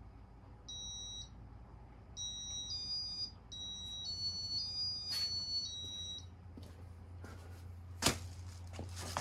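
Casablanca Victorian ceiling fan's piezo beeper sounding a short series of electronic beeps at a few different pitches as the fan's control starts demo mode. About eight seconds in there is a sharp click, and a low steady hum from the fan becomes stronger.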